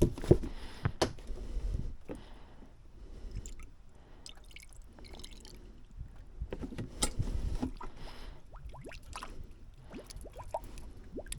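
Rubber radiator hose squeezed by hand a couple of times, the water inside squishing and gurgling as trapped air is worked out of the freshly filled cooling system, with small clicks and drips between the squeezes.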